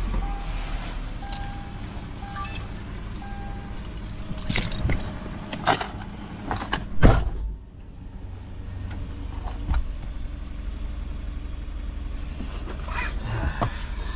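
Car running at idle with a steady low hum, heard from inside. A warning chime beeps about once a second for the first few seconds. Then come a few knocks and one loud thump about seven seconds in, after which the cabin is quieter.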